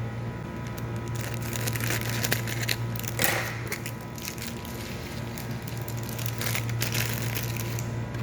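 Irregular plastic clicks and crackles of a laptop's casing being handled, densest about a second in and again near the end, with a louder crackling patch near the middle. A steady low hum runs underneath.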